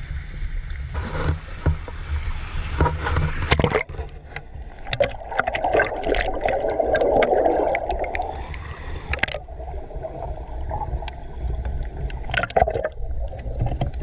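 Sea water sloshing and surging around a GoPro held at the surface as small waves break over it. The water rushes in swells, loudest in the middle, with many scattered bubbly clicks. For the first four seconds, before this, there is only a low rumble.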